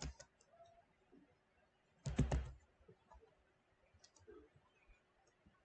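Faint computer keyboard typing and mouse clicks: scattered quiet key and button clicks. A single louder short noise comes about two seconds in.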